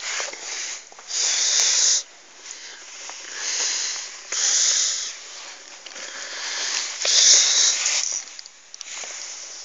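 Puppy sniffing and breathing right against the microphone: about six breathy hissing bursts of roughly a second each, with quieter gaps between them.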